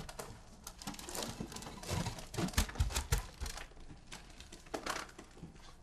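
Footsteps and shuffling as people walk away across the floor: a run of irregular knocks and clicks, loudest about two to three seconds in.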